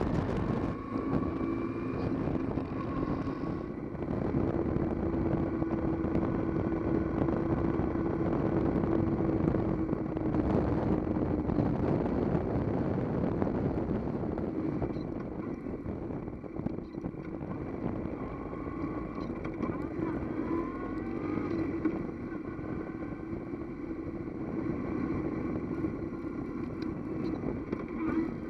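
Kawasaki W800's air-cooled parallel-twin engine running on the move, under a steady rush of wind and road noise. The engine's pitch rises and falls briefly about twenty seconds in.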